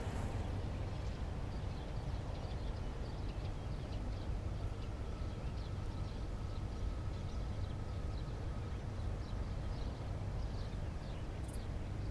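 Outdoor ambience: a steady low rumble with faint, scattered high bird chirps.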